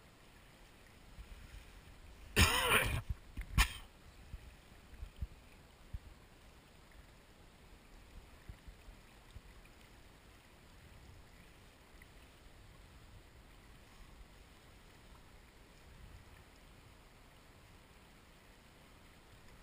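A person clearing their throat once, about two and a half seconds in, followed a second later by a short sharp knock. The rest is a faint low rumble.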